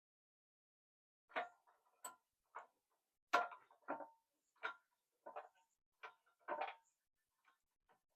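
Short metallic clicks and knocks, about ten of them at uneven intervals, some with a brief ring, as a bush pressing tool is worked to drive a new bush into a differential cover.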